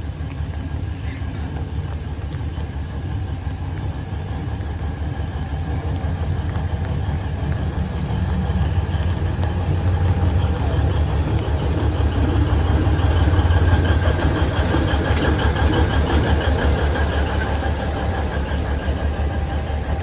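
Alishan Forest Railway red diesel locomotive DL-39 running as it moves slowly past. Its engine hum grows louder to a peak about two-thirds through, then its passenger carriages roll by on the rails.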